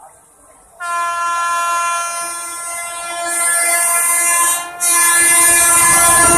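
Electric locomotive horn of the approaching Rajdhani Express (hauled by a WAP-7) sounding one long blast from about a second in, breaking off briefly past the middle and then sounding again. Near the end the rumble of the train coming through at speed rises under the horn.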